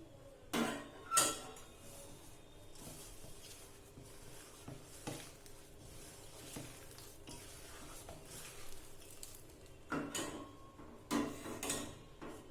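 A utensil clinking and knocking against a bowl, with soft stirring and scraping in between, as rice flour is mixed into mashed banana for malpua batter. The sharpest clatters come about half a second and a second in, then again near the end.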